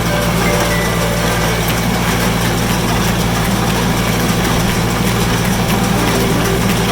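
Tractor engine running at a steady speed with an even low drone.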